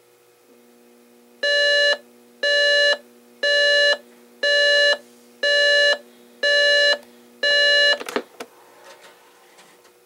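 Emerson RES5245 clock radio's alarm going off: seven high-pitched beeps, about one a second, each about half a second long, followed by a few short clicks.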